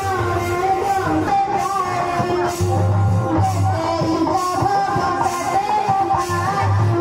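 Music: a melody on a plucked string instrument over a recurring low bass pulse.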